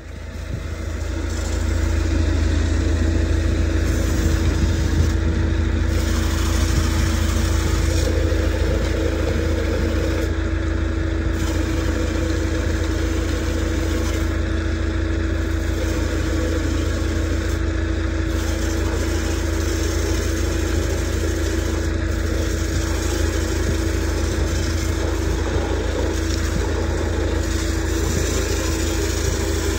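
High-pressure water jet hissing as it sprays onto the underside of a vacuum truck's steel tank, over an engine running steadily at a constant pitch. The sound builds over the first couple of seconds, then holds steady.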